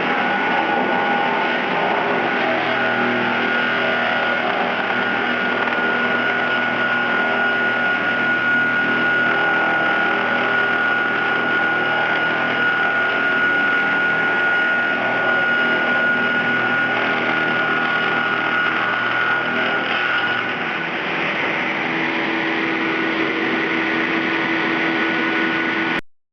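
GR-630 slab-edging sawmill machine running: a steady mechanical din with a high whine. About twenty seconds in the whine drops out and a lower steady hum takes over.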